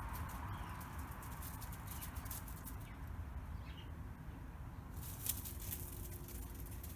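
Faint bird chirps over a low outdoor rumble, with short crunching clicks of dogs' paws on gravel, thickest about five seconds in.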